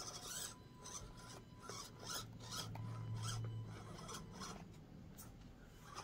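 Axial SCX24 micro RC crawler on the move: irregular scratchy rasping of its tires and chassis over the course, over a faint low hum from its motor and gears that swells in the middle.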